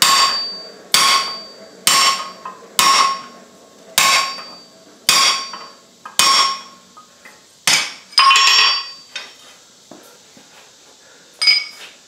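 Hand hammer striking a steel drift driven through a hot punched hole over the anvil's hardy hole, about one blow a second, each with a short metallic ring. The blows stop a little past eight seconds in, and a single clank follows near the end.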